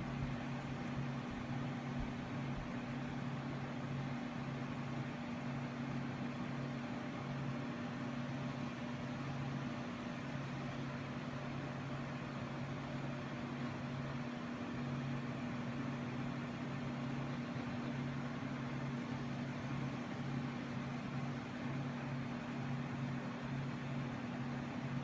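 Steady low mechanical hum over a constant hiss, with two low tones, the lower of which flickers in and out.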